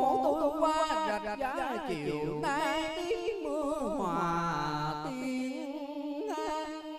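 A man singing a Vietnamese tân cổ (vọng cổ-style) song into a handheld microphone, holding long notes with a strong, wavering vibrato.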